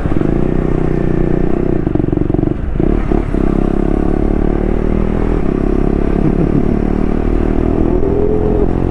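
Single-cylinder KTM 250 Duke motorcycle engine running at a steady riding speed, with wind rumbling over the microphone.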